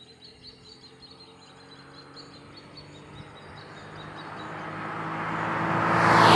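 2005 Audi A6 3.2 Quattro's V6 approaching at high speed, its engine note holding a steady pitch and growing steadily louder. A rush of tyre and wind noise swells in the last second as the car nears. Birds chirp faintly at first.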